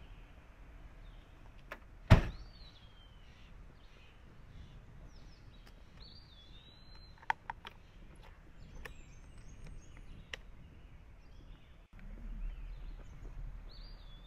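Guitar case being handled: a loud, heavy thump about two seconds in, then a few sharp clicks through the middle, while small birds chirp throughout.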